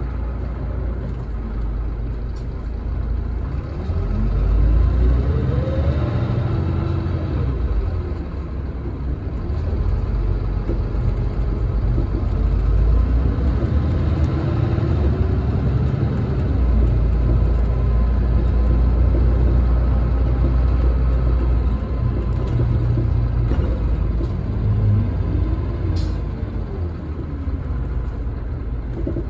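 Tokyu city bus under way, heard from inside the cabin: a steady low rumble with the engine note rising as the bus accelerates and falling back at each gear change, several times over.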